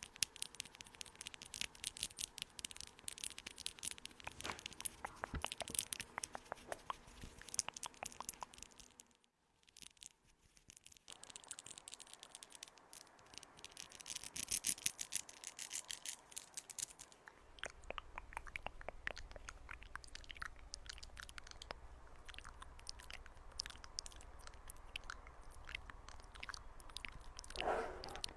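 Close-miked ASMR trigger sounds: fast, crisp scratching and clicking strokes, with a pause of about two seconds about nine seconds in. A faint low hum sits under the later part.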